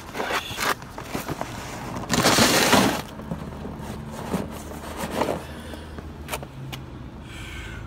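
Cardboard shoe box crushed underfoot: one loud crackling crumple about two seconds in, lasting about a second. Scattered knocks and scuffs of rubber-soled boat shoes stepping on asphalt come before and after it.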